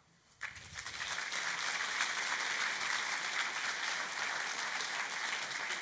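Audience applauding: the clapping starts about half a second in, swells within a second to a full, steady round of applause, and keeps going.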